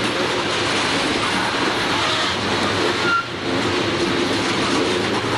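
CSX coal hopper cars rolling past close by: steady noise of steel wheels on rail, with a brief drop in level about three seconds in.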